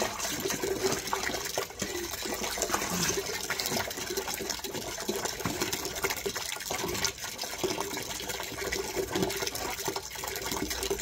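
Wet, soapy squelching and splashing as hands scrub shampoo lather into a wet Rottweiler's coat, a steady watery sound with many small crackles.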